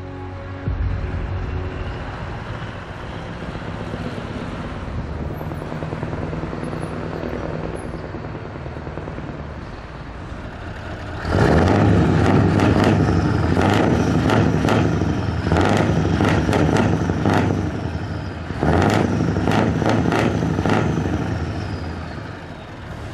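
Scania R500 V8 truck engine on an open exhaust pipe running steadily at idle, then revved hard in two long bursts, the first about eleven seconds in and the second about nineteen seconds in, before it drops back.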